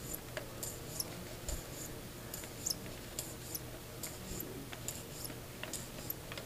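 Electric sewing machine stitching slowly through paper: a steady low motor hum with a light tick from each needle stroke, about two to three a second.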